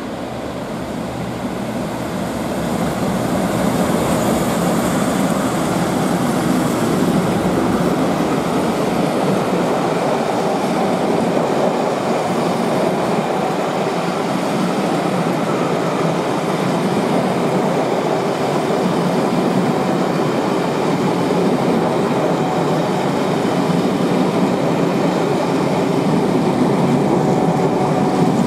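Two Class 37 diesel locomotives, with English Electric V12 engines, running through a station, growing louder over the first few seconds as they come past. This gives way to a long, steady rumble of a rake of passenger coaches rolling by on the rails.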